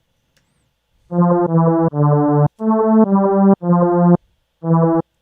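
Harmor software synthesizer lead patch playing a short phrase of about seven separate notes at varying pitches, starting about a second in.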